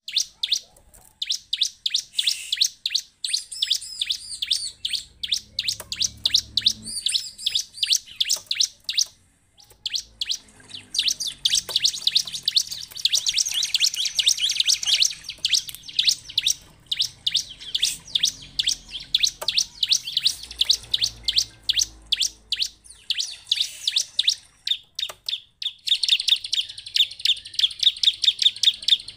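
Bar-winged prinia (ciblek) calling: rapid runs of sharp, high chirps in bursts with short pauses, ending in a fast, even trill.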